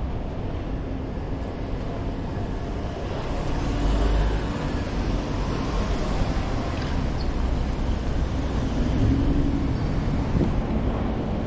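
Steady city street ambience heard while walking, an even wash of noise with no single clear source, and a low rumble of wind on the microphone that swells about four seconds in.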